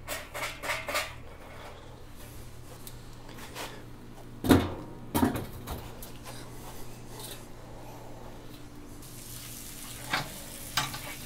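Parts of a Weber Smokey Mountain smoker being put together: hot charcoal briquettes tumble and clink from a chimney starter in the first second. Then come two loud metal clanks about four and a half and five seconds in as the smoker's middle section is seated, and two lighter clanks near the end as the water pan goes in.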